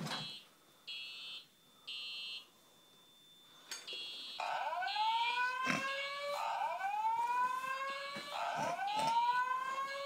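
Simplex TrueAlert fire alarm horns sounding. First comes the code-3 temporal pattern, three high-pitched half-second beeps. A little under four seconds in, a second code-3 horn and a repeated rising whoop tone start up together and overlap.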